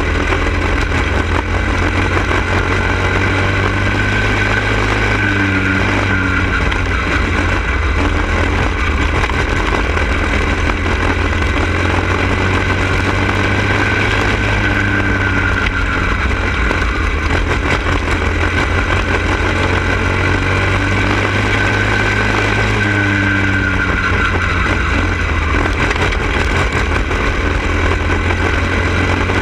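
Small go-kart engine running hard at racing speed, heard from onboard the kart with another kart close ahead, its pitch dipping slightly and coming back up every several seconds.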